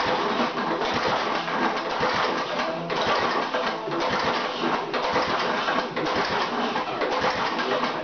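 Freshly rebuilt Tecumseh Vantage single-cylinder four-stroke small engine running steadily, a dense, fast rattling chatter.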